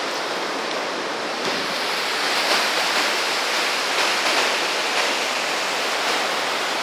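River rapids rushing, a steady even roar of white water.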